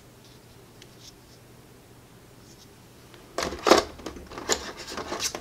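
Plastic miniatures being handled against a plastic insert tray: faint ticks at first, then a cluster of sharp clicks and scrapes about three seconds in as a figure is put back into the tray and another taken out.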